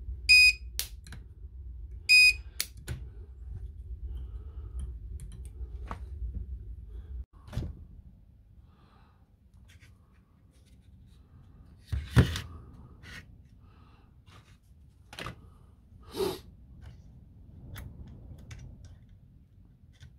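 Two short, high electronic beeps about two seconds apart, with a low steady hum underneath that cuts off about seven seconds in. Then scattered clicks and knocks as the plastic cell holder and circuit board of a lithium-ion battery pack are handled.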